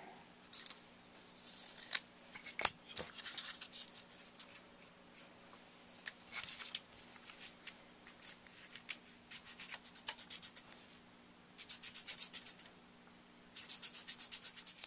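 Scissors cutting a strip of sandpaper, with one sharp snip about two and a half seconds in. Then bouts of quick back-and-forth sanding on the acrylic-filled bite plate of a gold-plated metal mouthpiece, about ten strokes a second, in two runs near the end.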